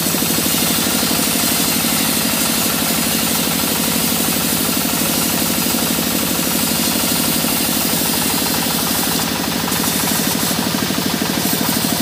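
Band sawmill running as it rips a squared mahogany beam, a loud, steady machine noise with a fast, even pulse.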